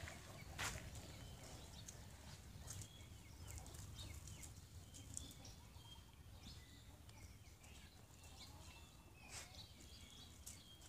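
Faint outdoor ambience with a low steady rumble, scattered light clicks and crunches of dogs' paws on gravel, and short high chirps now and then.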